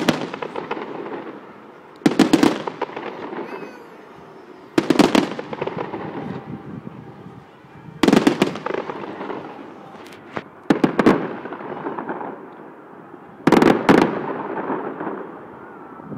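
Fireworks display: aerial shells bursting, a sharp bang about every two to three seconds, each followed by crackling that fades out.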